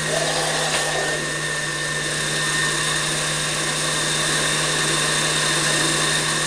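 Countertop blender running steadily at speed, puréeing tomato salsa with jalapeño: a constant motor hum under an even rush of noise.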